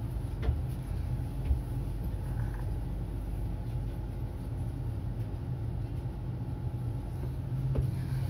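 Tram running, heard from inside the car: a steady low rumble, with two brief knocks about half a second and a second and a half in.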